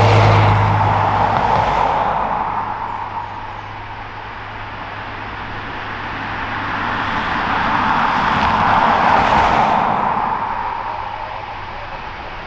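Jet airliner engines at taxi power: a low hum under a high whine, loud at first and fading over about three seconds, then swelling to a second peak around nine seconds in before fading again.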